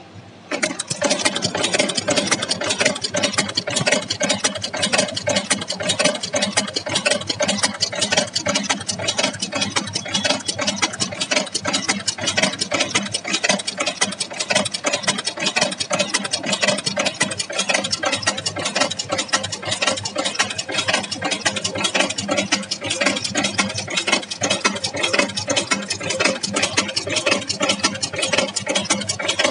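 Automatic chain making machine running at speed, its tools forming wire into chain links with a fast, dense metallic clatter. The clatter starts abruptly about half a second in and then keeps an even pace.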